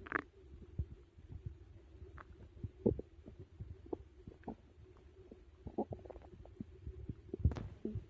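Stomach growling and gurgling from digestion after a big meal: a steady low growl under a run of short, irregular pops and gurgles, the loudest about three seconds in and again near the end.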